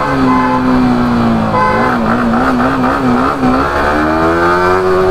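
Motorcycle engine under the rider at low city speed, held steady at first, then wavering as the throttle is worked on and off, and rising slowly as it opens up over the last second and a half.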